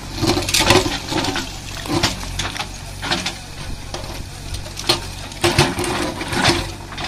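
A JCB 3DX backhoe loader's diesel engine runs steadily while its backhoe bucket scrapes and drags through loose stones, giving several gritty bursts of scraping and rattling rock.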